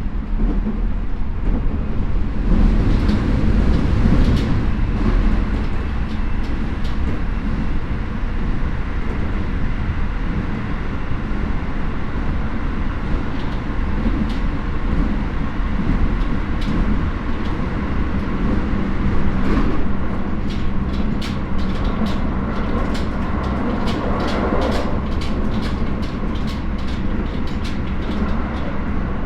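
Running noise heard inside a Keio 9000 series electric train car (Hitachi IGBT VVVF), a steady rumble of wheels on rail at line speed between stations. In the last third a run of quick sharp clicks from the wheels over the track joins the rumble.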